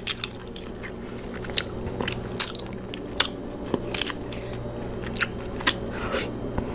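Crab and shrimp shells cracking and snapping as they are pulled apart by hand, with close-up chewing and wet mouth sounds. Sharp cracks come every half second to second over a steady low hum.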